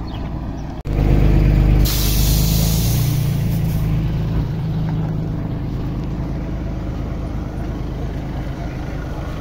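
Diesel engine of a livestock truck running with a low rumble, with a loud hiss of air brakes about two seconds in that lasts about two seconds.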